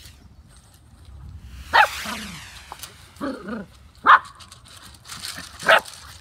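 Six-week-old puppies barking and yapping as they play-fight. Three short, high, sharp barks stand out, about two seconds in, about four seconds in and near the end, with smaller yaps between them.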